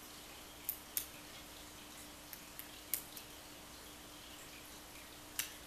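Sparse, irregular small metallic clicks of a hook pick setting pin tumblers in a lock cylinder held under a pry-bar tension wrench, about seven clicks with the loudest about a second in and another near the end, over a faint steady hum.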